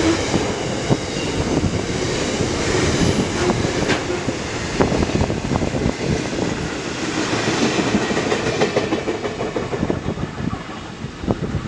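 Container wagons of a freight train rolling past at speed, their wheels clicking over rail joints, until the last wagon clears near the end.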